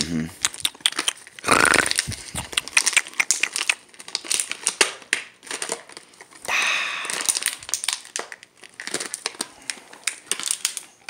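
Crushed plastic water bottle crackling and crinkling as a dog chews on it and tugs against a hand holding the other end: quick irregular crackles throughout, with louder crunching bursts about a second and a half in and again past the middle.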